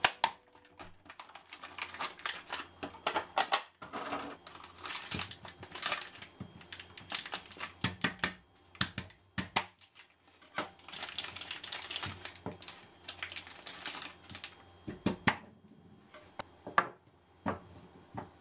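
Handling and cutting a kabocha (sweet pumpkin): a clear plastic clamshell pack and plastic bag crackle and crinkle, with irregular clicks and sharp knocks of a kitchen knife against a wooden cutting board.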